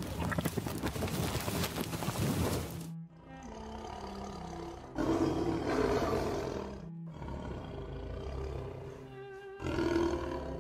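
For about three seconds, a dense rumble of hooves as a herd of bison moves over dry grass. It cuts off abruptly, and a tiger growls twice over background music, first for about two seconds and then more briefly near the end.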